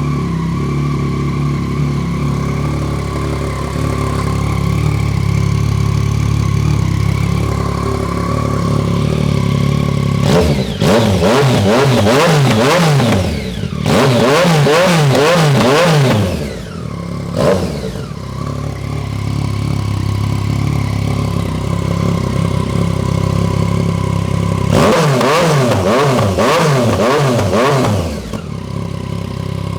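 Yamaha FZ-09's 847 cc inline-three engine running through a newly fitted Black Widow full exhaust, on its first start after the install. It idles steadily, then a run of quick throttle blips about ten seconds in, a single short blip a few seconds later, idle again, and another run of blips near the end before settling back to idle.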